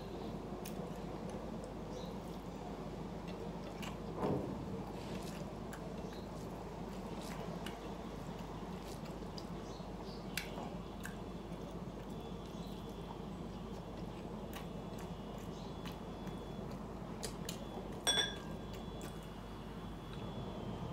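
Eating rice and fish curry by hand: quiet chewing and soft squishing of food, with faint scattered clicks over a steady low room hum. A short knock about four seconds in, and a sharp ringing clink of a drinking glass near the end.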